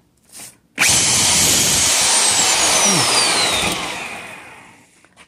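Corded Ryobi reciprocating saw run briefly: its motor starts suddenly about a second in, runs loud and steady for a few seconds with a high whine falling in pitch, then winds down and fades out.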